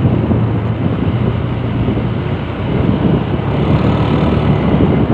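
Motorcycle engine running steadily at low road speed, with wind rushing over the microphone.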